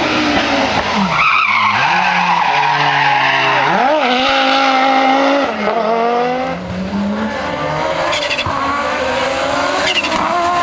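Audi Sport quattro S1 E2 Group B rally car's turbocharged five-cylinder engine being driven hard: the revs climb and drop repeatedly as the driver lifts off and shifts, with a long climb through the gears in the second half.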